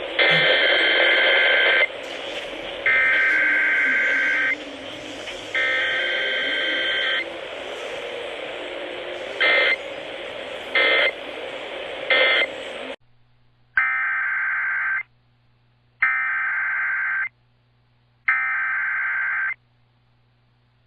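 Emergency Alert System SAME data bursts: harsh, buzzing digital tones sent as three long header bursts about a second apart, then three short end-of-message bursts. After a cut a second station's three header bursts follow over a quieter background.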